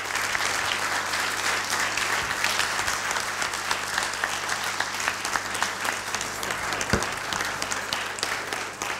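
Audience applauding, many hands clapping at a steady level throughout, with one dull knock about seven seconds in.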